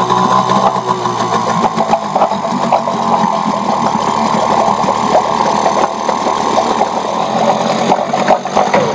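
Mercury 3.3 hp single-cylinder two-stroke outboard running steadily on a test tank of water, with its leg in the water.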